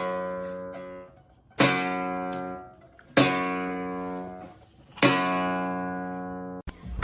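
Acoustic guitar strumming single chords, each left to ring and fade: three fresh strums about every one and a half to two seconds, following one struck just before.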